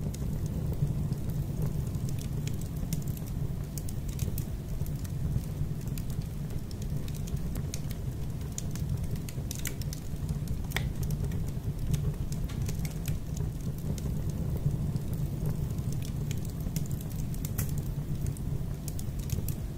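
Steady low roar of a fire with scattered sharp crackles and pops.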